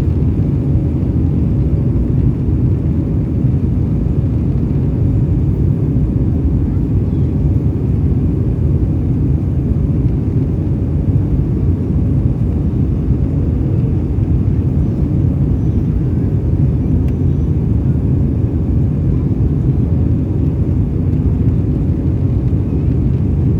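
Steady, loud low rumble of an Airbus A320's jet engines and rushing air, heard from inside the cabin, with a faint steady hum above it and no change in level.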